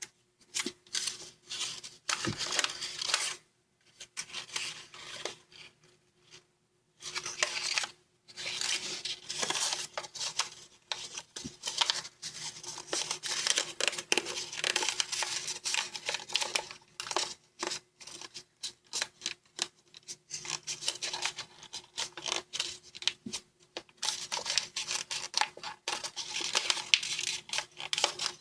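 Origami paper rustling and crinkling as fingers fold and press creases into it, in irregular bursts with small crisp clicks and two short pauses in the first seven seconds.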